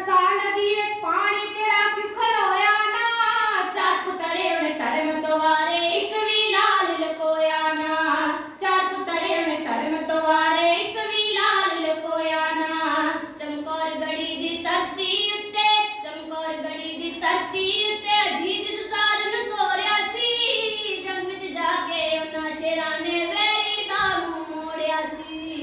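Two girls singing kavishri, Punjabi folk verse, in a continuous, bending melody. The voices are unaccompanied: the harmonium in front of them is not played.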